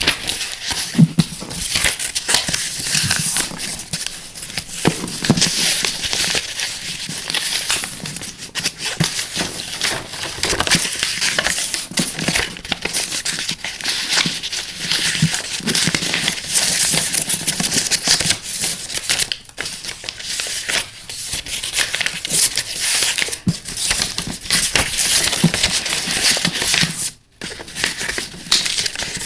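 A sheet of paper being folded and creased by hand, with continuous, irregular crinkling and rustling.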